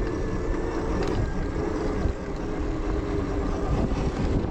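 Zero FX electric motorcycle riding on a dirt trail: the electric motor's steady whine over a continuous rumble of tyres and wind.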